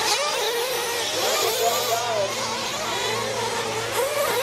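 Several nitro RC race trucks' small glow-fuel engines screaming at high revs, their pitch rising and falling over and over as the drivers throttle on and off.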